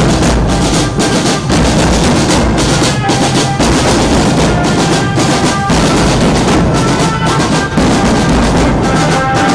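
Marching drum band beating bass drums and snare drums together in a loud, steady beat.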